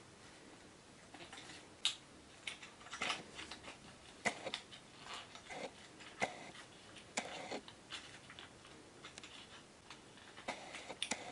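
Hands handling a Roman blind's top rail and fabric: scattered small clicks and taps with short rustles, a second or so apart.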